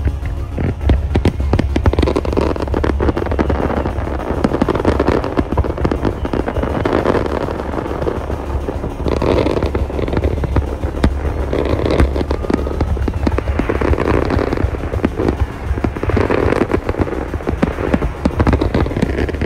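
Fireworks display going off: a dense, continuous run of sharp bangs and crackles, with music playing alongside.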